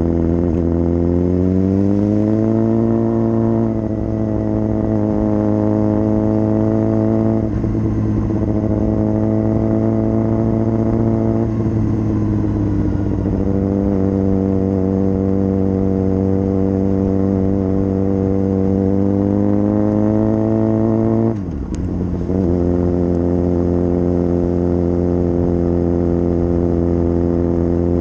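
Suzuki GSX-R600 inline-four engine running under way, its note rising over the first few seconds. Short breaks in the note come about 4, 7.5 and 11.5 seconds in, and about 21 seconds in there is a brief sharp drop as the throttle closes, before it pulls again.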